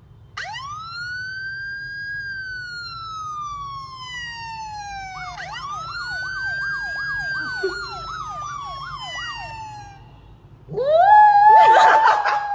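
Siren sound played from a phone: a slow wail that rises and then falls, followed by a second wail with quick up-and-down yelps over it. About two seconds before the end, a small white curly-coated dog howls along, rising and then holding, much louder than the siren.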